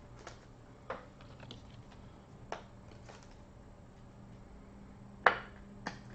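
Plastic card holders being handled: a few sharp clicks and faint rustles as a trading card in a soft penny sleeve is slid into a rigid plastic toploader, the loudest click about five seconds in.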